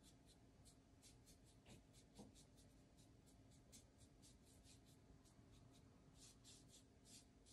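Faint, quick strokes of a paintbrush laying paint on a small craft truck, about three short swishes a second.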